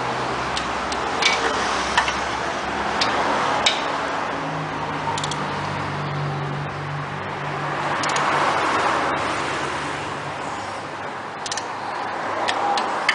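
Scattered sharp metallic clicks from a torque wrench tightening the exhaust manifold nuts to 44 N·m, with steady workshop background noise underneath.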